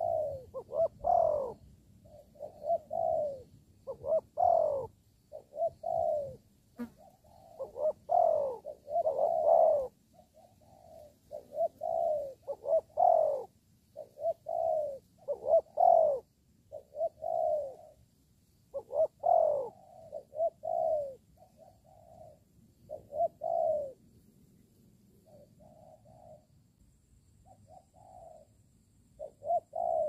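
Doves cooing: short, low coo phrases repeated about once a second, sometimes running together. The calls grow fainter and sparser near the end.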